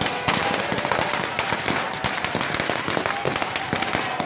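Firecrackers going off in a rapid, dense crackle of sharp bangs, many a second and uneven, with no pause.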